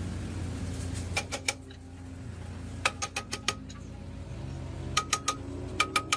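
Short bursts of sharp metallic taps, three or four at a time, repeated four times over a steady low hum.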